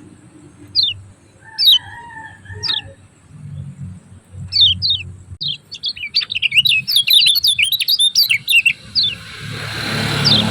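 Kecial kuning white-eye giving its 'ciak ciak' call: short, high, falling chirps, a few spaced ones at first, then a fast rapid-fire run about six seconds in. A low hum sits underneath, and a hiss swells near the end.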